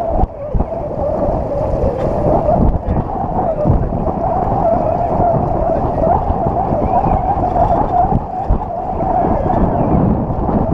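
Wind buffeting the microphone aboard a sailing yacht under way, a gusty low rumble over a steady rushing wash.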